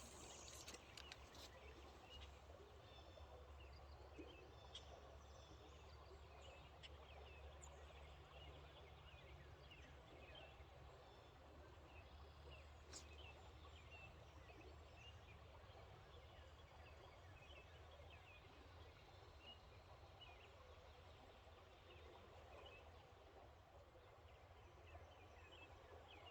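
Faint riverside ambience: a low, steady rumble of fast-flowing river water with many small high chirps scattered throughout, and a single faint click about halfway through.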